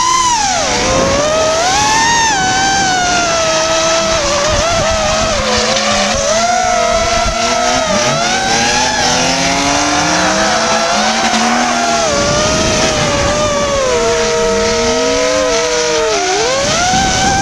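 FPV racing drone's motors and propellers whining, the pitch constantly rising and falling as the throttle changes. Underneath are drift cars' engines revving and their tyres screeching as they slide.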